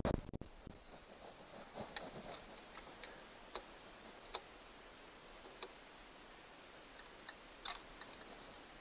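Irregular light metallic clicks and taps of a screwdriver and wrench working at a screw in a distributor's breaker plate, with a dull bump of handling just at the start.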